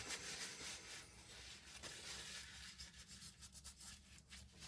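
Faint rubbing with a few small clicks near the end: hands wiping and handling an oil-filled RC shock absorber.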